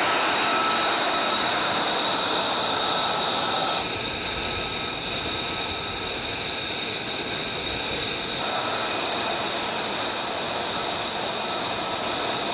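F-35's F135 turbofan engine running on the ground: a steady whine of high tones over a rushing hiss, shifting in tone about 4 and 8 seconds in.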